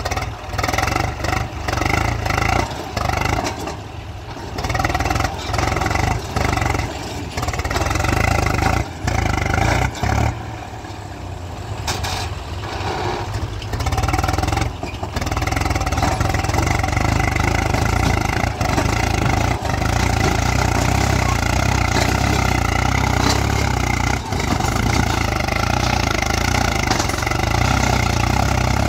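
Swaraj 735 XT tractor's diesel engine labouring under heavy load as it tries to pull free with its wheels bogged in sand. The revs rise and fall unevenly for the first half, then hold steady and high from about halfway.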